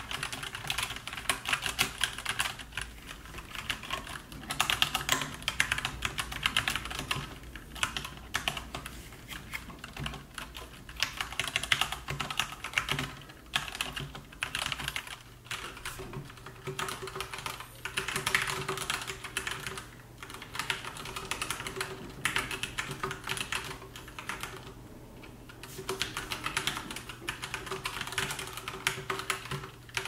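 Typing on an Epomaker GK96S mechanical keyboard with Gateron Optical Red linear switches: a dense, fast run of keystroke clicks that breaks off for a moment now and then.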